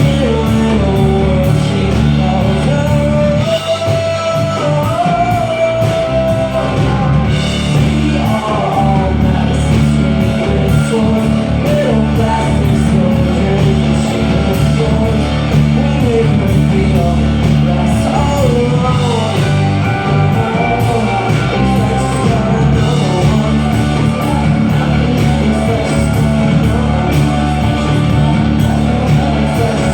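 Live rock music: a band playing the song, with a melody line over guitar and a steady low accompaniment.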